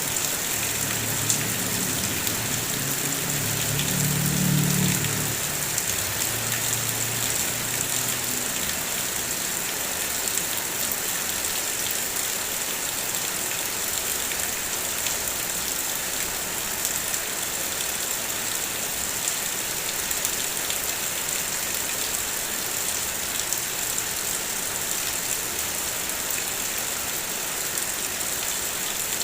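Rain falling steadily in an even hiss. A low rumble swells about four seconds in and fades away by about nine seconds.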